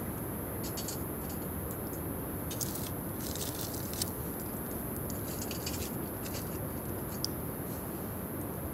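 Wood fire crackling in a small twig-burning camp stove, with scattered irregular pops and snaps over a steady hiss.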